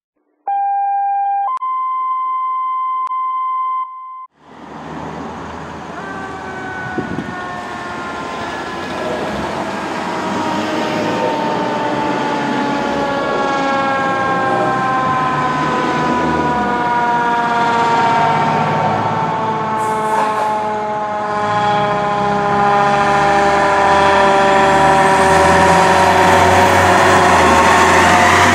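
A two-tone alert opens it: a short steady tone, then a longer, higher one. Then a fire engine's siren comes in, its pitch falling slowly and steadily as it draws closer and grows louder.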